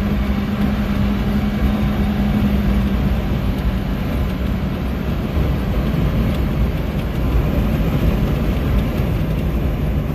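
1994 Subaru Sambar van at highway speed, about 75–80 km/h, heard from the cab: the rear-mounted engine and e-CVT drone steadily over heavy wind and road noise. The engine's pitch drops a little about three seconds in.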